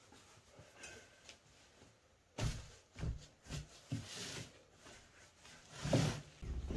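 A cloth rustling and soft knocks against an enamel bowl as the cloth is laid over a bowl of covered dough and tucked in around it. The sound comes in several short bursts starting about two and a half seconds in, the loudest near the end.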